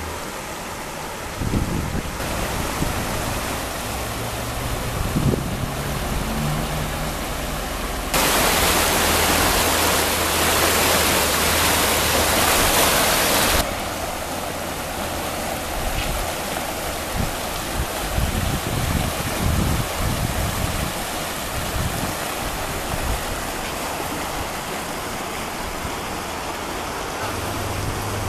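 Rushing river water, a steady rush that becomes much louder for about five seconds in the middle, cutting in and out abruptly.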